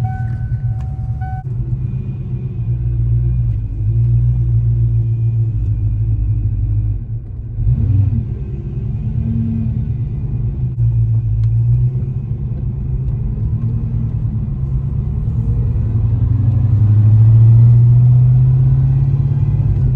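1988 Ford Mustang GT Fox Body's V8 engine running under way, heard inside the cabin with road noise. The engine note rises and eases with the throttle, and swells loudest near the end as the car accelerates.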